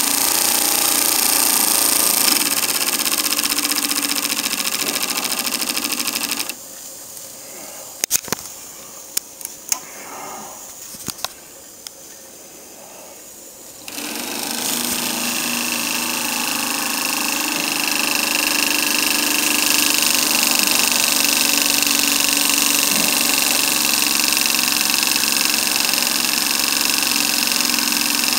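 TVR1A model steam engine running steadily. For about seven seconds in the middle the running sound drops away and only a few sharp knocks and clicks are heard, then the steady running comes back.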